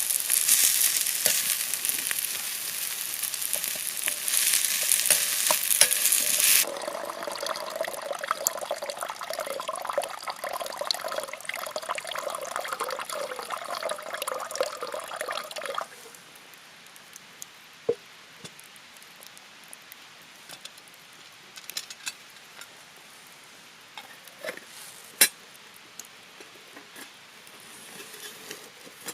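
Food frying in a pan, sizzling loudly with a bright hiss. The sizzle changes abruptly about a third of the way in to a lower, busier spatter, then stops suddenly about halfway through. After that there is a quiet background with a few scattered sharp clicks.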